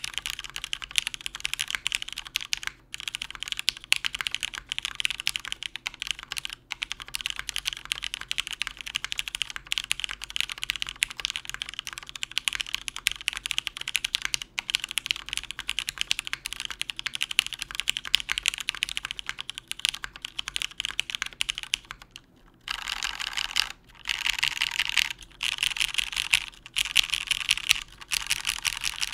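Mechanical keyboard with lubed Cherry MX Black linear switches on an aluminum plate and GMK keycaps, typed on at a steady quick pace. About three-quarters of the way in, after a brief pause, keys are spammed in several dense bursts of rapid strokes.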